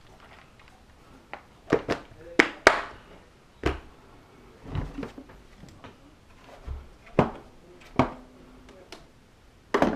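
A string of about ten sharp, irregularly spaced plastic clicks and knocks. A clear plastic parts organizer is snapped shut and set down, a pistol is picked up, and a hard plastic gun case is handled.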